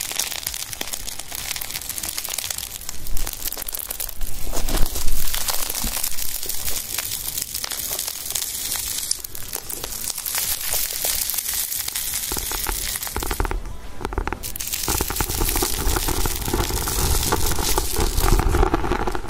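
Dense crackling, rustling noise, louder for a couple of seconds near the start.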